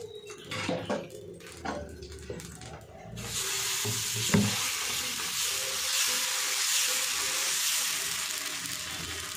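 Dosa batter hitting a hot tawa and sizzling: a sudden hiss starts about three seconds in and goes on steadily, slowly fading, as the batter is spread with a ladle. A few light knocks come before it, and one sharp knock of the ladle on the pan about a second after the sizzle starts.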